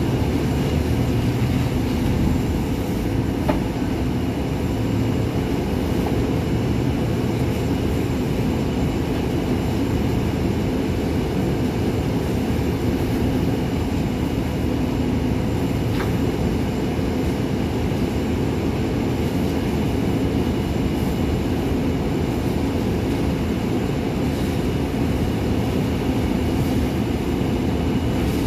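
International MV garbage truck's diesel engine idling steadily, a constant low rumble, with a faint tick or two.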